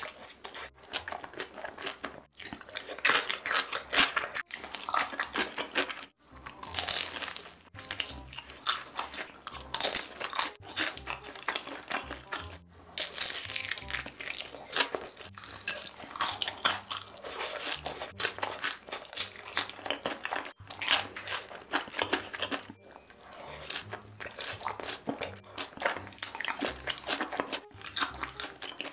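Close-miked crunching and chewing of seasoned fried chicken, bite after bite.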